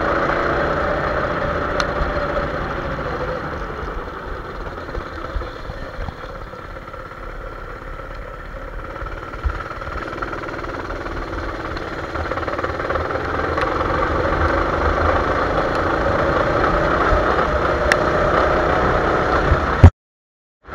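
Motorised rally trike running at speed over rough grass, its motor droning steadily with a rumble from the bumpy ground. It eases off in the middle and pulls harder again after that.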